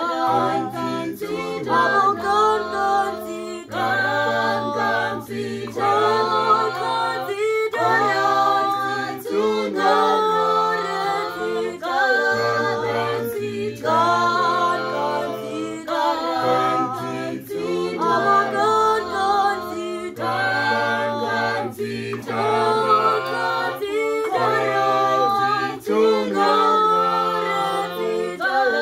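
Choir singing a cappella in harmony, with sustained low bass notes under the upper voices, in steady, evenly repeating phrases.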